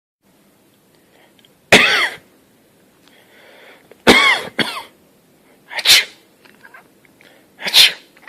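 Four sharp sneezes about two seconds apart. The first two drop in pitch, and the second is followed at once by a shorter one.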